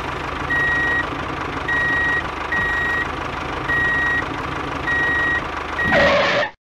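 Vehicle reversing alarm beeping about once a second over a steadily running engine, signalling that the tractor is backing up. It ends with a brief louder surge and cuts off suddenly.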